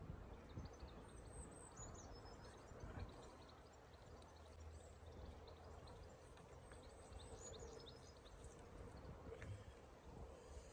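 Quiet lakeside ambience: a few faint bird chirps high up over a low, steady rumble of wind noise.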